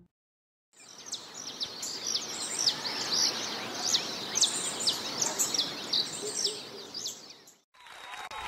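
Birds chirping: many short, quick high calls over a soft outdoor hiss. The sound starts after a moment of silence and cuts off near the end, where a busier background with a murmur of voices begins.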